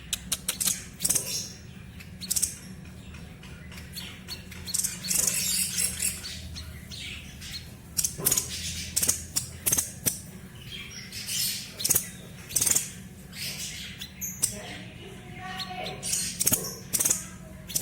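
Songbird sold in Indonesia as the 'sniper' or tepus dada putih, singing in quick runs of sharp, high chirps and short bursts. A steady low hum runs underneath.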